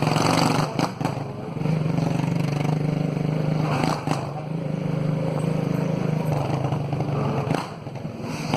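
Motorcycle engine running steadily, its note easing briefly a few times.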